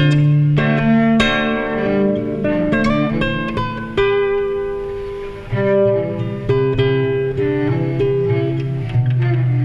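Instrumental music: plucked string notes struck every second or two and left to ring, overlapping one another above held low notes.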